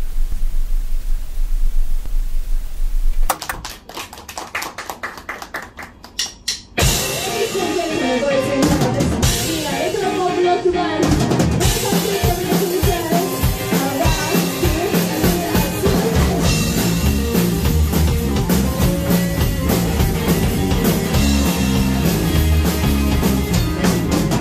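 Television static hiss for about three seconds, then a few seconds of quiet fast ticking, then a three-piece rock band (drum kit, bass guitar, electric guitar) comes in loudly about seven seconds in and plays on with a steady beat.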